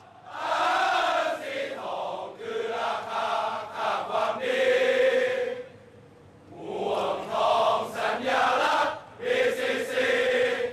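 A crowd of football supporters, mostly men, singing a chant together in unison. Held notes come in phrases, with a short break around six seconds in and another around nine seconds in.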